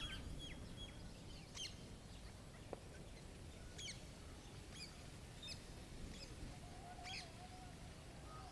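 Small birds chirping in short, scattered notes over a faint, steady low rumble, with a longer wavering lower tone about two-thirds of the way through.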